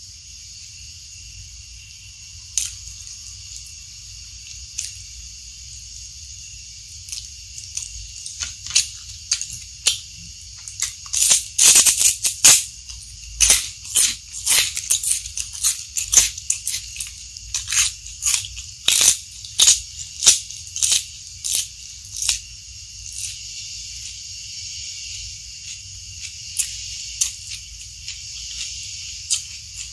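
Close-miked crisp crunching of raw vegetables being chewed. The crunches are irregular, come thick from about 8 to 22 seconds in, and are loudest about 12 seconds in, over a steady high hiss.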